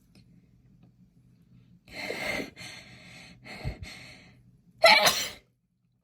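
A woman's sneeze coming on: a few breathy, gasping inhales, then one loud sneeze about five seconds in. It is set off by the scent of lavender bath essence.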